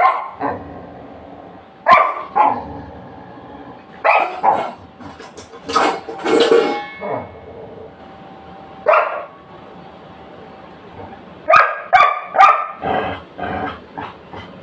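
A dog barking in bouts of short, loud barks, some in quick runs of two to four, with pauses of a second or two between bouts.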